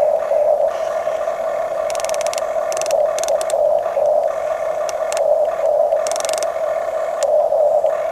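Electric motors and gearboxes of Huina radio-controlled construction models running with a steady whine. Short bursts of gear rattle come about two, three and six seconds in.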